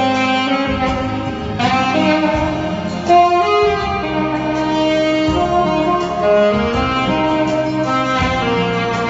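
Saxophone playing a melody of held notes that step up and down in pitch, over an accompanying backing track.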